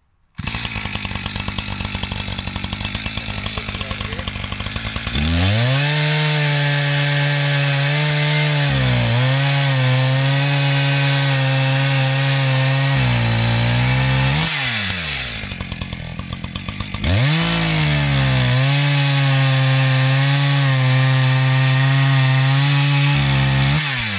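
Echo CS-590 Timberwolf two-stroke chainsaw idling with a fast rattle, then revved up about five seconds in and held at high revs. The revs drop back briefly a few times before climbing again.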